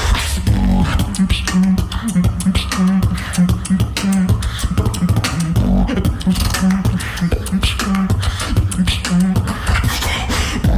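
Solo beatbox performance: rapid vocal-percussion clicks and snares over a low bass note pulsing about twice a second.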